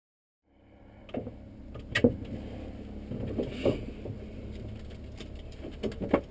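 Saab Safir light aircraft's piston engine and propeller running with a steady low drone, heard inside the cockpit. Several sharp clicks and knocks sound over it, the loudest about two seconds in.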